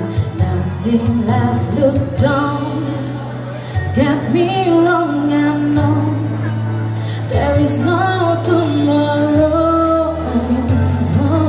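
A street performer singing into a microphone over backing music, amplified through a portable speaker, with a sung melody over a steady bass line.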